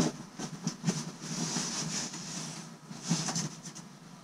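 A knock at the start, then rustling and handling of clothing and box contents as a black denim jacket is dug out of a cardboard box, loudest in the middle and again near the end.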